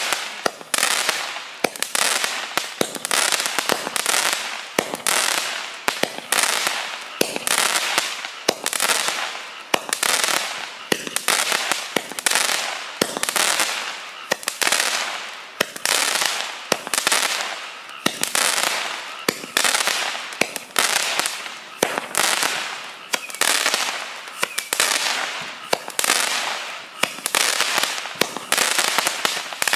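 Small-calibre 49-shot firework cake with plastic tubes (Joker 'Mandarinka' JF MCP-49) firing shot after shot, about one and a half a second. Each sharp pop trails off into a fading crackle from the burst.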